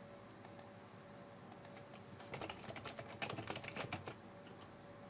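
Typing on a computer keyboard: a few scattered keystrokes, then a quick run of them lasting about two seconds from a little before halfway.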